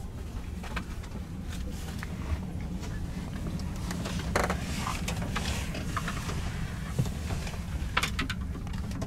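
Steady low hum inside a TGV Duplex carriage standing at the platform, with scattered light clicks and knocks, the loudest about four seconds in and another near the end.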